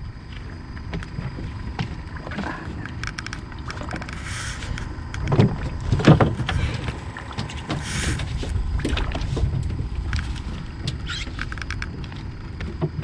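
Small fishing boat riding on the water: steady low rumble of wind and water against the hull, with scattered clicks, two brief splashy hisses and two louder knocks about five and six seconds in.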